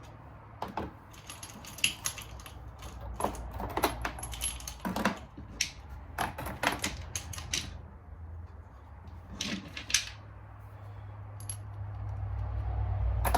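Irregular metallic clinks and clatter of ATV clutch parts (clutch plates and the hub nut) being handled by hand. The clinks thin out after about eight seconds, and a low steady hum runs underneath.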